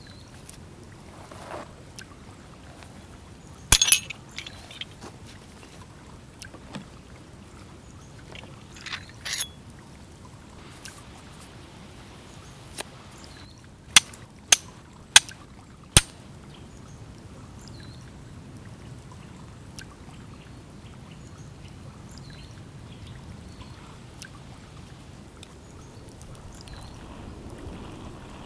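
Hand-forged C-shaped fire steel striking a flint to throw sparks for lighting a fire: four sharp, clear strikes about half a second apart, a little past halfway through. A louder clatter of handling comes earlier, about four seconds in.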